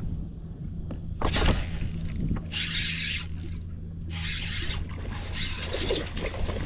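A boat's motor humming steadily, with a sharp knock about a second in and three short hissing bursts after it.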